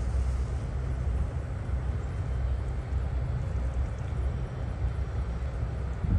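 Steady low engine rumble with an even wash of background noise and no sudden events, from vehicles loading onto a car ferry.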